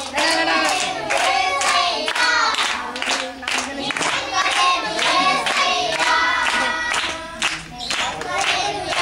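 A group of children singing together while clapping their hands in time, with a regular beat of claps.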